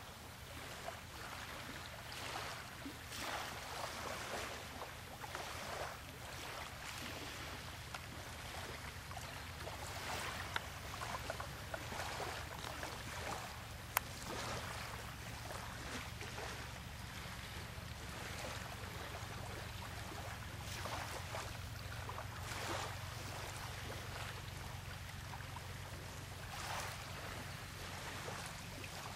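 Outdoor wind and water noise with a low steady hum, rising and falling in small swells, and one sharp click about halfway through.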